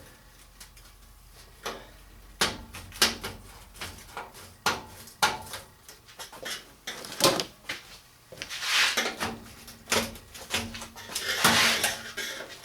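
Metal parts of a hinge and sheet-metal door being handled on a bench: a string of sharp knocks and clanks, with two longer scraping rubs near the end as metal slides against metal.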